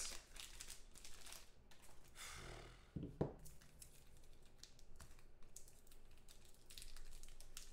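Hands handling a foil trading-card pack and hard plastic card holders: soft crinkling and rustling of the wrapper, scattered small clicks and taps, and a couple of sharper knocks about three seconds in.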